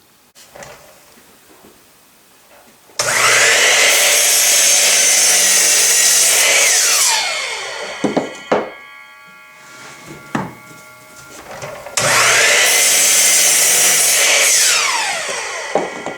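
Electric chop saw crosscutting 2x4 lumber, twice: each time the motor starts abruptly, runs loud and steady for about four seconds through the cut, then winds down with a falling whine. A few sharp knocks come between the two cuts.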